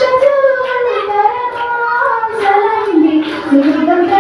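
A girl singing a Mappila song (Mappilappattu) solo into a microphone, holding long notes that glide and bend between pitches.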